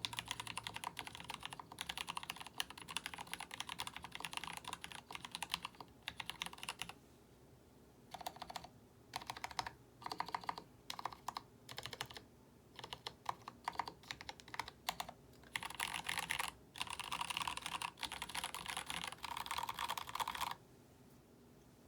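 Typing on a Mark 65 mechanical keyboard with lubed Gateron Cap Milky Yellow linear switches, GMK Denim ABS keycaps, an FR4 plate and a polycarbonate case. Fast continuous typing for about seven seconds, a brief pause, then scattered single keystrokes and short bursts, then another fast run that stops near the end.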